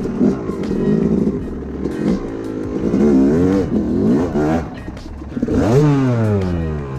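A 2007 Yamaha YZ250's 250 cc two-stroke single-cylinder engine revs up and down in short bursts on a dirt trail. Near the end it gives a hard rev whose pitch then drops steeply away as the bike goes down into the leaves.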